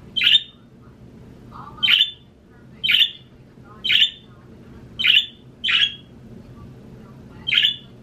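Budgerigar giving short, sharp squawking calls, seven in a row at roughly one a second.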